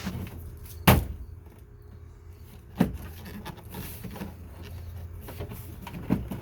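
Sharp knocks on a car's rear door panel as it is pressed and struck to seat its retaining clips: a loud one about a second in, a lighter one near three seconds and a faint one near the end.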